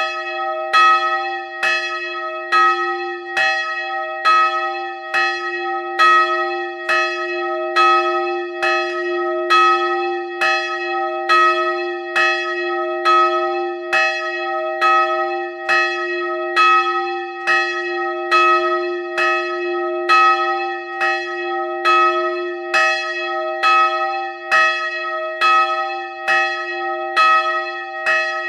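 A single church bell swinging and rung by hand with a rope, its clapper striking about once a second in an even rhythm. Each stroke rings out over a steady low hum that carries on between strokes, heard up close inside the belfry.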